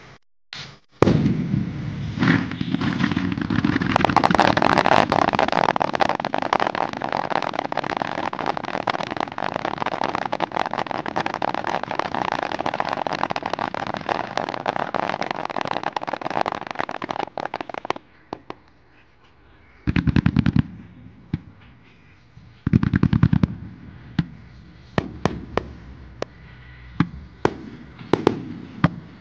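Starmine fireworks barrage: a dense, continuous run of rapid bangs and crackling for about sixteen seconds. It then thins out to two heavy booms a few seconds apart, followed by scattered pops and crackles.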